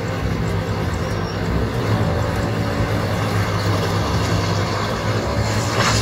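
SANY hydraulic crawler excavator's diesel engine running steadily under load as the machine slews and works its arm, with a short rush of noise near the end as the bucket goes into the dirt.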